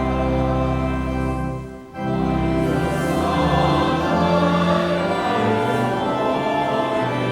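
Many voices singing a hymn with organ accompaniment, on long held notes over steady low organ tones; the sound drops away briefly about two seconds in, between phrases.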